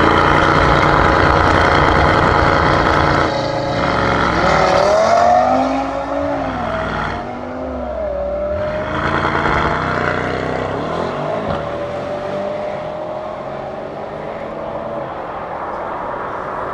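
Tuned Mercedes-AMG GT63 S twin-turbo V8 revving hard and then accelerating away at full throttle. The engine pitch climbs and drops several times through the gear changes. It grows fainter near the end as the car pulls away.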